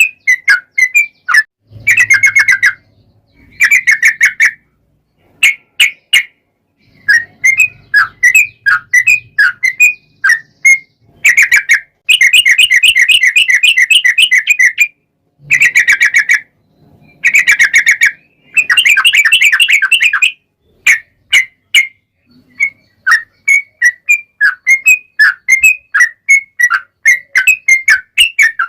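Yellow-vented bulbul (trucuk) singing in loud, bubbly, repeated chirping phrases. Several long, fast rippling trills (the 'ropel panjang') each run two to three seconds, and between them come separate chirps.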